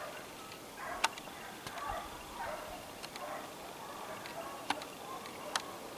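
Hunting hounds baying and yelping on a hare's trail in repeated short, irregular cries, with a few sharp clicks.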